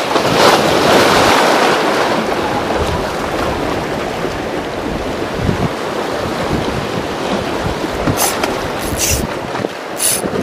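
Sea waves washing and splashing against the concrete tetrapods of a breakwater, with wind buffeting the microphone. Near the end come a few short sharp clicks.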